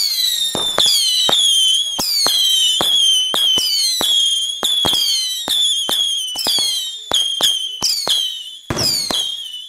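Two whistling fireworks, the Blizzard and the High Riser, going off together. Shot after shot sounds as a sharp pop followed by a shrill whistle that falls in pitch, about two or three a second and overlapping. There is a denser burst near the end.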